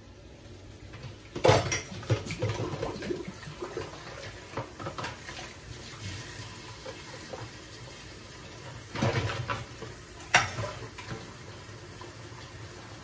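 Dishes being washed by hand at a kitchen sink: crockery and cutlery clattering, with the sharpest knocks about a second and a half in and again around nine to ten and a half seconds, over the steady hiss of running water.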